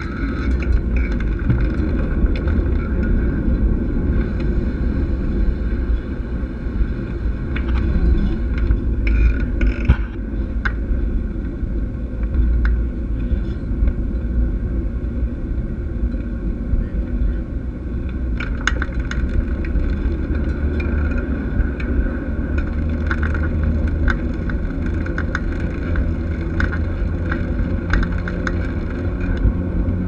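Mountain bike rolling along a concrete path: a steady low rumble of tyres and wind on the camera, with scattered light clicks and rattles from the bike.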